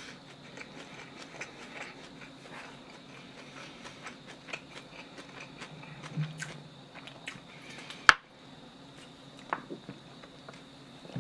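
Close-miked mouth sounds of a person eating: many small, wet chewing clicks, with a drink gulped from a plastic soda bottle about six seconds in and one sharp click just after eight seconds.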